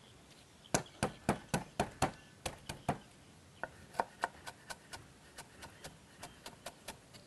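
Kitchen knife chopping lemongrass on a cutting board: a quick run of strokes about four a second starting under a second in, then lighter, more spaced chops.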